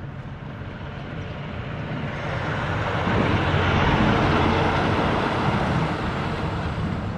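Kawasaki Ninja 600 sportbike approaching, growing steadily louder, at its loudest about three to five seconds in as it passes, then fading away.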